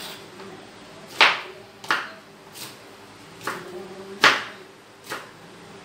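Kitchen knife chopping down onto a cutting board: about six separate knocks at uneven spacing, the loudest about a second in and again just past four seconds.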